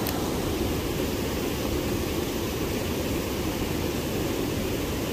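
Small stream waterfall pouring into a deep pool: a steady, low rushing of water.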